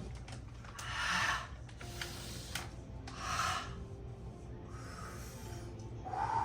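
A person breathing heavily: four noisy breaths spread over a few seconds, over a low steady hum.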